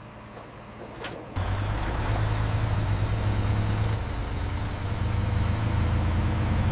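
A single click, then a vehicle engine comes in abruptly about a second and a half in and runs with a steady low rumble.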